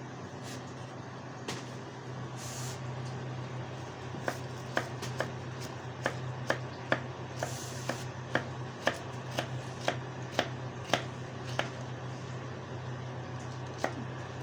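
A run of sharp taps or clicks, about two a second for several seconds, over a steady low hum.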